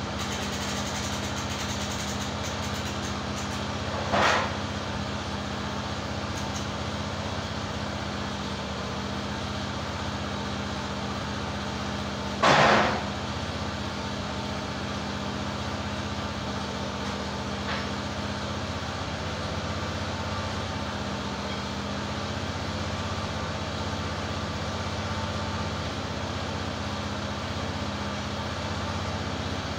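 EZ Boardwalk 40 sawmill engine idling steadily, with two loud short knocks, one about four seconds in and a louder one about twelve seconds in, as the big pine log is rolled over with the log turner and settles onto the bed.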